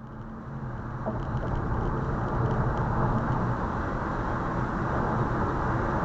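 Steady road and engine noise of a car driving, rising in level over the first second or so and then holding steady.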